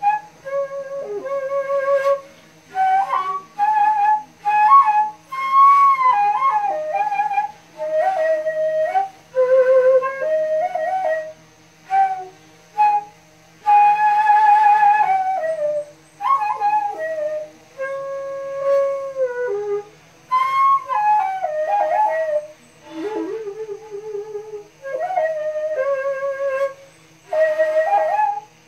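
Daegeum, the large Korean transverse bamboo flute, played solo: a slow melody in short phrases with brief pauses between them, notes bending and sliding from one pitch to the next, with one strong held note near the middle.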